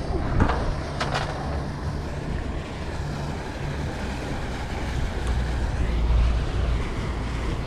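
Wind buffeting the microphone over water moving around a small boat, with two short knocks about half a second and a second in.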